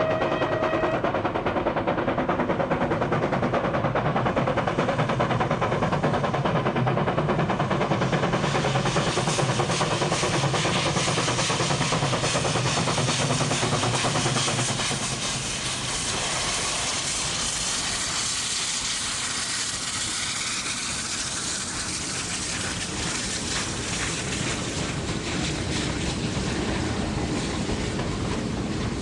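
SY class 2-8-2 steam locomotive working hard up a steep grade: rapid, loud exhaust beats with steam hiss, and its whistle sounding a steady note that stops about a second in. About halfway through the locomotive has passed and it gets quieter, leaving the passenger carriages rolling by with wheel clatter.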